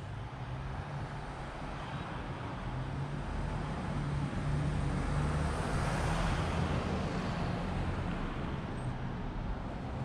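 Street traffic: a motor vehicle passes, its tyre and engine noise growing to loudest about six seconds in and then fading, over a steady low engine hum.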